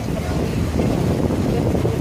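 Passenger boat under way on open water: wind buffeting the microphone over a steady low rumble of engine and water.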